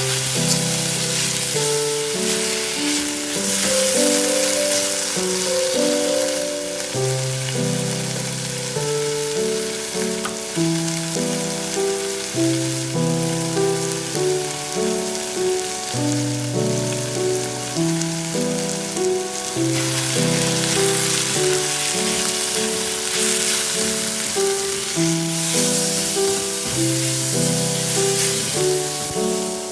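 Gentle piano background music over food sizzling and frying in a cooking pot, a continuous hiss throughout.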